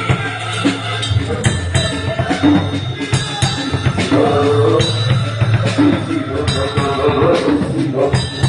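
Live band playing a song through the PA at a sound check: drum kit striking a steady beat over a bass line, with a melodic part on top.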